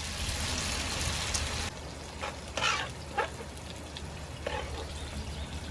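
Pasta with sauce sizzling in a grill pan on a portable tabletop grill as it is stirred with tongs. The sizzle is strongest for about the first second and a half, then settles to a softer hiss with a few short, sharper sounds over it.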